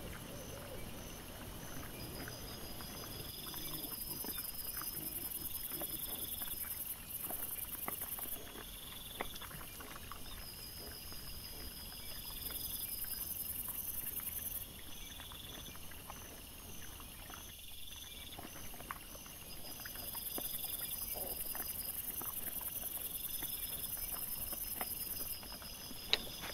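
Trail camera's steady electronic hiss and faint pulsing whine, changing every few seconds at cuts between clips. Under it, scattered faint crunching and rustling of wild boar and piglets rooting in leaf litter, with a sharp knock near the end.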